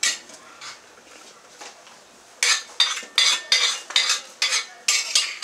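Metal spoon scraping and knocking against a metal bowl as chopped ingredients are emptied from it into a soup pot. One clack at the start, then from about halfway a quick run of scrapes, about three a second.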